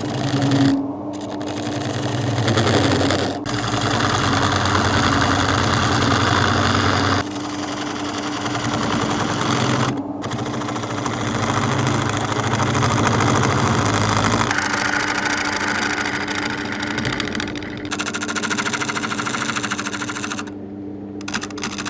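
Wood lathe running slowly with a large oak platter blank while a hand-held turning tool cuts a dovetail recess into its face: a steady motor hum under a rough cutting rasp. The rasp swells and eases as the tool is pressed in and drawn back, and it stops briefly a few times when the tool lifts off.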